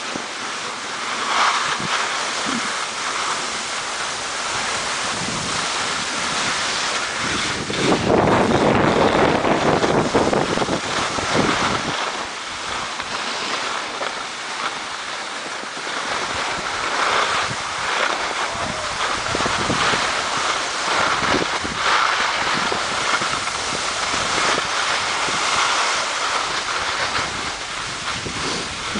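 Wind buffeting the microphone over a steady hiss of skis sliding on snow, with the heaviest buffeting about eight to twelve seconds in.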